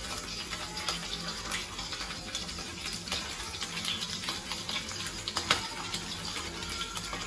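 Soup being ladled from a pot into a bowl: liquid pouring and splashing, with scattered light clinks of the metal ladle against the pot, one sharper clink about five and a half seconds in.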